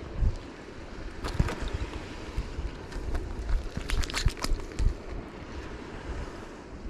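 Wind rumbling on the microphone, with a few short sharp clicks and rustles about a second in and again around four seconds in from a caught fish being handled on the line.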